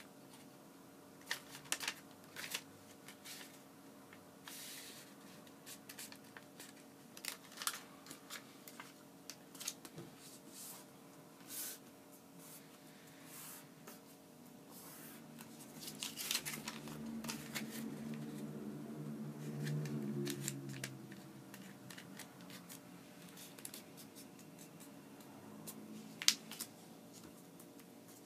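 Origami paper rustling and crinkling in short crisp strokes as a sheet is handled, folded into a triangle and creased flat against a table. A low hum swells for a few seconds in the middle.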